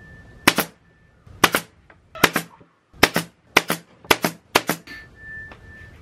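Pneumatic brad nailer firing seven times into small sticks, each shot a sharp doubled crack, the shots coming closer together toward the end.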